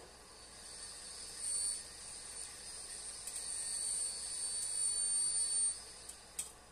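Thin, steady high-pitched whine from an induction hob heating an enamelled pan, over the faint hiss of simmering cream sauce. The whine is louder through the middle and drops away near the end, followed by two light clicks.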